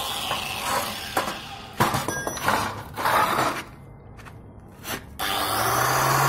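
Handheld angle grinder spinning down, then several sharp knocks and scrapes of a steel mesh grille being handled. About five seconds in the grinder starts again, and its motor winds up to a steady running pitch.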